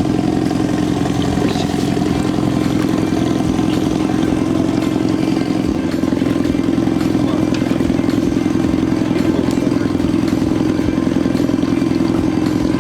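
A boat motor running steadily at trolling speed: an even, unbroken engine hum.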